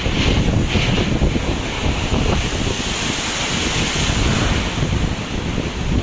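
Heavy storm surf crashing and surging against a concrete pier, under a steady hiss of spray. Strong wind buffets the microphone with a continuous low rumble.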